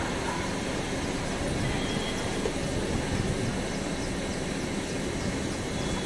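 Steady rumble of a passenger train running on the track as it moves away, with faint regular clicking over the top.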